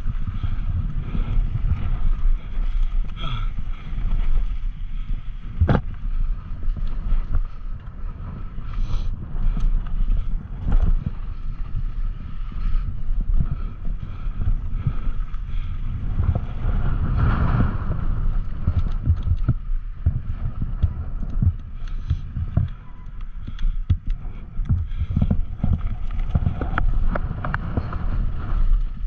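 Mountain bike descending a dirt trail, its tyres rolling and the bike rattling with frequent sharp clicks and knocks over bumps, under heavy wind rumble on the microphone.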